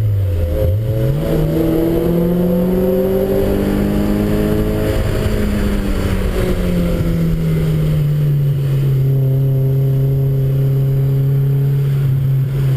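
Car engine heard from inside the cabin on a track lap: a quick dip and sharp jump in revs as the driver downshifts, then the revs climb steadily under acceleration for a few seconds before falling back and holding steady.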